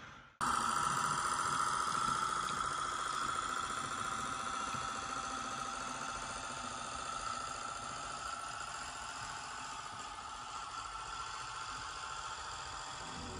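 H0-scale BS300 rail-road bus model's sound decoder playing a recording of the Deutz diesel engine, running steadily through the model's small speaker. It starts after a brief gap about half a second in and slowly gets quieter as the model drives away.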